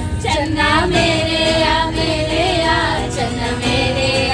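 Music with voices singing a melody over instrumental accompaniment.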